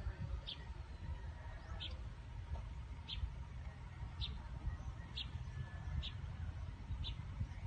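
A bird giving a short, high chirp about once a second, over a low rumbling background noise.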